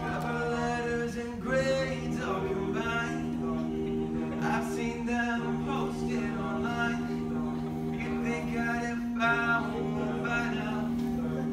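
A cappella vocal group singing, with backing voices holding steady sustained chords under a lead voice carrying the melody.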